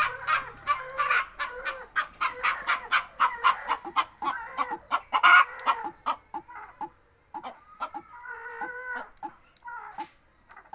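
Chicken clucking: a fast run of short clucks, several a second, for the first half, then slower, scattered clucks and one longer drawn-out call.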